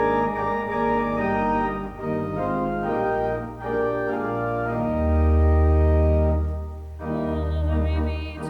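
Organ playing slow, sustained chords, with deep pedal bass notes entering about halfway through and a brief break between phrases near the end.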